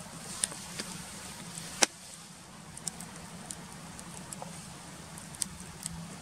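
Wood fire crackling under a grill grate, with irregular sharp pops, the loudest a little under two seconds in.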